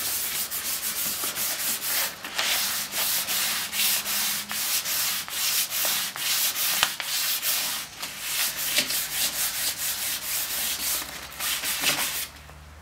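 Hand dry-sanding the black-painted front fender of a Volkswagen Rabbit Mk1 with 320-grit sandpaper: rapid back-and-forth rubbing strokes, knocking the bumpy paint texture down. The sanding stops just before the end.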